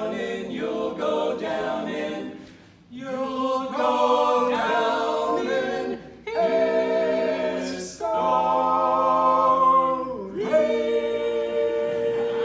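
Male barbershop quartet singing a cappella in close four-part harmony, the closing phrases of a song in short chordal bursts with a brief break about 2.5 s in, ending on a long held final chord.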